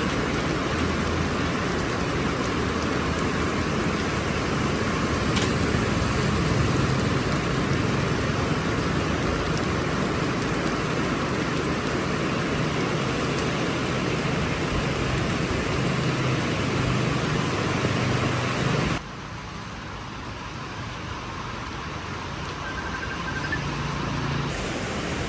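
Heavy rain pouring down in a steady, dense hiss. It cuts abruptly to quieter rain about three-quarters of the way through.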